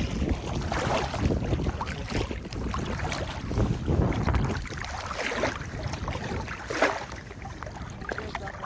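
Wind buffeting the microphone in uneven gusts, with a few brief higher sounds in between.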